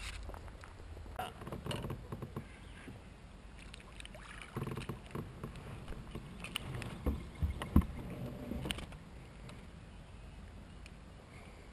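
Scattered small knocks and low thumps from an angler moving about and handling gear in a kayak on the water. They are busiest in the middle and quieter towards the end.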